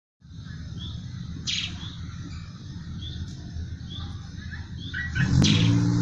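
A caged Eurasian tree sparrow chirping: short, repeated high chirps, with a harsher, louder call about a second and a half in and another near the end. A steady low rumble runs underneath, and a louder low hum joins about five seconds in.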